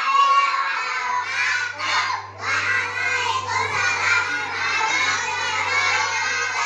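A group of young children shouting and chattering over one another, many voices at once.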